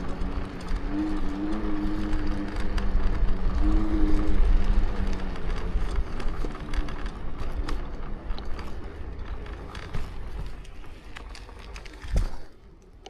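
Electric scooter being ridden, its frame crackling and creaking with many sharp clicks over deep rumble, with a wavering whine in the first few seconds; the crackling and creaking are a fault of the scooter. The noise fades over the last few seconds, with a single thump near the end.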